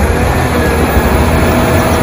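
Large wheel loader's diesel engine running as its bucket works into a sand pile: a steady, heavy rumble with a faint whine.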